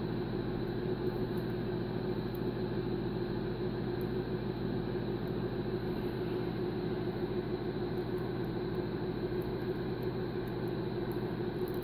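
Steady electrical hum with a fan-like whoosh behind it from the running bench test gear, with a few faint clicks as alligator clip leads are handled.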